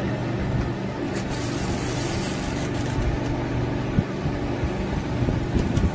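A steady low mechanical hum, with a few sharp clicks and knocks from a screwdriver working the screws of a plastic compressor relay cover, one about four seconds in and a cluster near the end.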